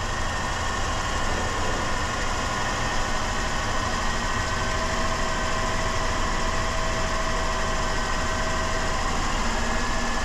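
Dodge Caravan's 3.3-litre V6 running steadily at a slightly raised idle while it draws intake cleaner in through an opened vacuum hose.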